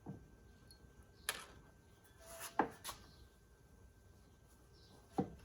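Faint, scattered metal clicks and knocks of a wrench working on the driveshaft's universal-joint bolts, which are being tightened by feel rather than to a torque spec: a click at the start, another about a second in, a short cluster near the middle, and one more near the end.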